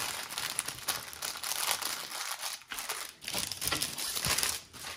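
Clear plastic packaging of a diamond painting kit crinkling irregularly as it is handled, with a short lull about two and a half seconds in.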